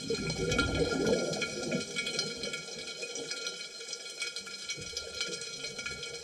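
Scuba diver exhaling through a regulator underwater: a gurgling rush of bubbles, strongest in the first couple of seconds, then fading. Faint crackling clicks throughout.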